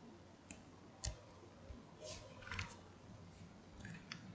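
Faint clicks and light knocks of a plastic handheld radio being handled and set down, the firmest knock about a second in and scattered clicks after it.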